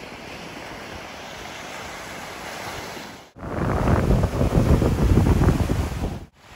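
Sea surf with wind on the microphone: first a steady hiss of waves, then, after an abrupt cut about three seconds in, louder gusty wind buffeting the microphone over a low rumble.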